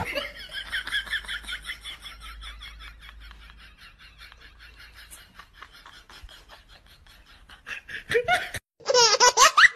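High-pitched laughter: a long run of quick, even laugh pulses that fades away over several seconds, then louder laughing near the end.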